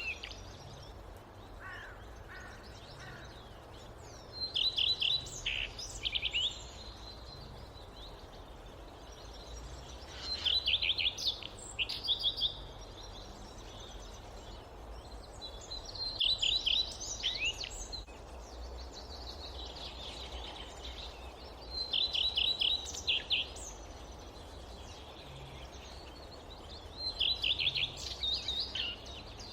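A songbird singing the same short, rapid phrase of high notes about every six seconds, five times, over a steady low background hiss of forest ambience. A fainter, lower call sounds once about two seconds in.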